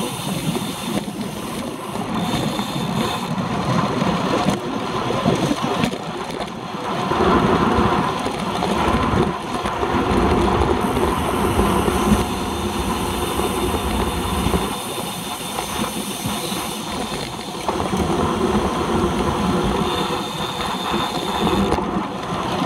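Wind rushing over the microphone of a handlebar-mounted action camera on a road bike at race speed, mixed with tyre and road noise. A heavy low buffeting rumble swells about a third of the way in and lasts some seven seconds.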